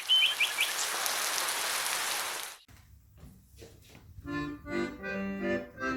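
A steady hiss of noise for about two and a half seconds that cuts off suddenly, then after a short pause accordion music starts up in a bouncy rhythm.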